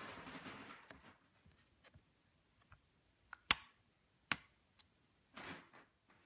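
A backlit photo print and its paper packaging being handled by hand: rustling in the first second, two sharp clicks about a second apart midway, which are the loudest sounds, and another short rustle near the end.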